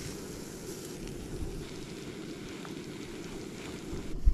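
Camping stove burner running steadily while melting snow for water. A single low thump near the end.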